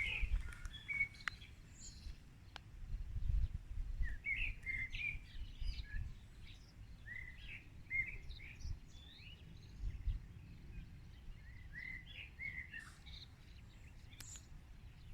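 Wild songbirds singing in short, repeated chirping phrases, with a low fluctuating rumble beneath them.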